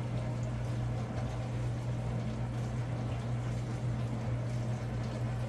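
A steady low hum with an even soft hiss behind it, unchanging throughout.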